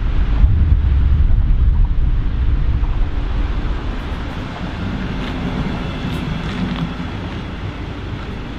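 A double-deck regional push-pull train, cab car leading, rolling past along the platform with a low, steady rumble and wind buffeting on the microphone. The rumble eases a little after about three seconds, and a few faint ticks and a low hum come in around the middle.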